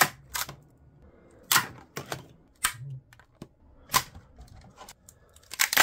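Sharp, irregular cracks and clicks of 3D-printed PLA parts popping loose from a flexed build plate, about seven in all, the last ones coming in a quick cluster near the end.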